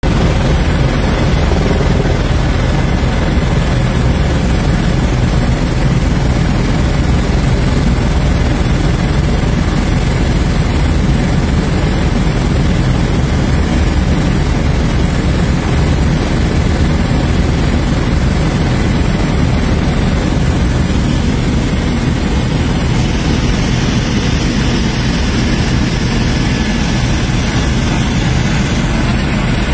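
Helicopter engine and rotor noise heard from inside the cabin in flight: a loud, steady, deep drone with a hiss over it.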